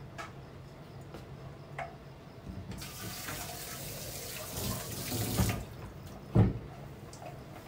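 Water running from a tap for about three seconds, starting and stopping abruptly, then a single loud thump.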